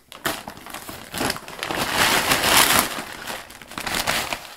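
Plastic bag of cracked corn crinkling as it is tipped, with the dry kernels pouring out and pattering onto a tile floor; the crackling builds to its loudest midway and tapers off near the end.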